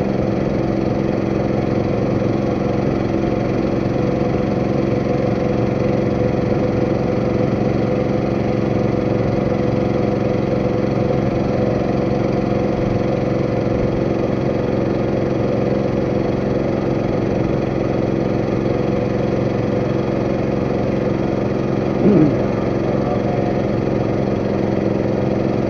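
Boat engine running steadily at an even speed, with a brief louder sound near the end.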